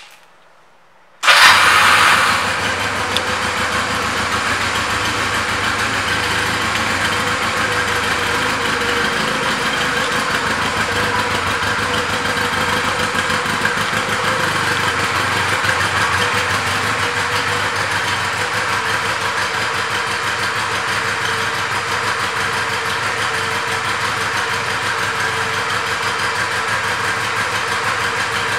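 2014 Honda Rebel 250's air-cooled parallel-twin engine catching about a second in and running briefly higher. It then settles into a steady idle.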